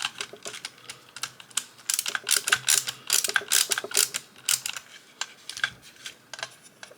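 Quick, irregular clicking in bursts from small screws being driven in by hand with a screwdriver, snugged down only lightly so the eyeball pivots can still move freely.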